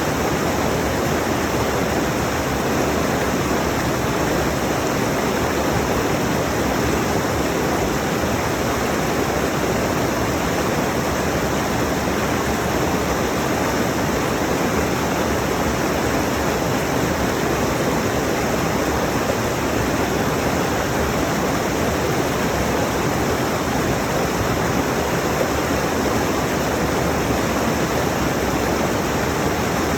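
Rushing mountain stream: water pouring and splashing over rocks in a steady, unbroken rush.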